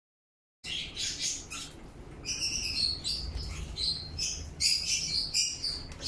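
Newly hatched parakeet chicks cheeping: many short, thin, high chirps in quick clusters, starting about half a second in, the begging calls of hatchlings being hand-fed. A faint low rumble runs underneath.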